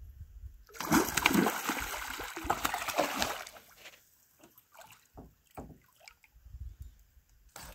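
A hooked northern pike thrashing and splashing at the water's surface for about three seconds, starting just under a second in. After it, a few scattered light knocks and taps.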